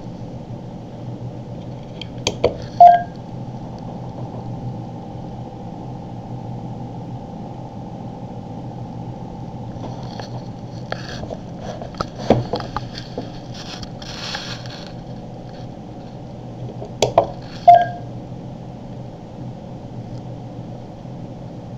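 Handling clicks and two short beeps from a GPS navigator, one about three seconds in and one near the end, each after a tap on its touchscreen. A steady low hum runs underneath.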